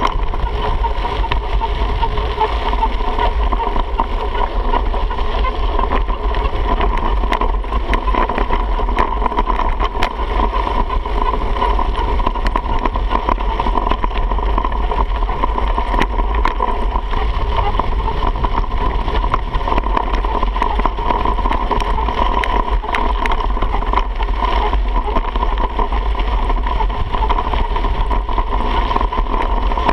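Wind buffeting the microphone of a bike-mounted camera as a mountain bike coasts downhill on a dirt and gravel trail. There is a steady low rumble, with frequent small clicks and rattles from the bike jolting over the rough ground.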